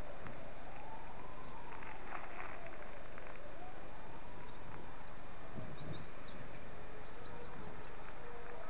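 A siren wailing, its pitch rising and falling slowly about once every three seconds. Birds chirp high above it in the second half, and a few faint clicks come through about two seconds in.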